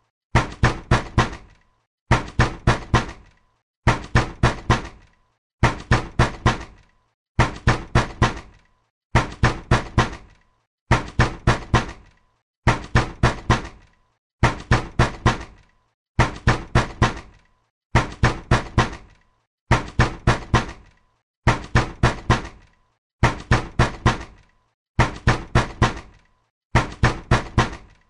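Angry knocking on a door: bursts of four quick, hard knocks, repeated the same way just under every two seconds.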